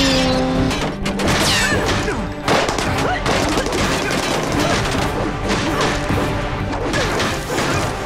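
Fight sound effects over dramatic action-score music: a quick run of punches, kicks and crashing hits, with a sharp hit about two and a half seconds in.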